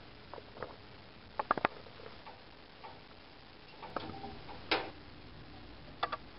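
Light clicks and knocks of a metal baking tray handled at an oven: a quick cluster of clicks about a second and a half in, one louder clank with a brief ring just under five seconds in, and two quick clicks near the end.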